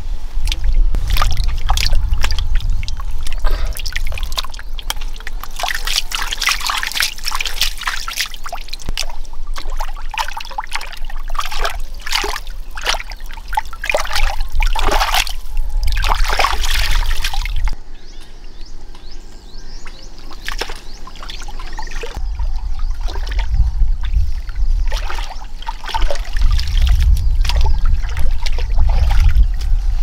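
Hands sloshing and squelching through thick mud and shallow muddy water while groping for fish, in irregular wet splashes that are busiest in the middle. A low rumble comes and goes underneath.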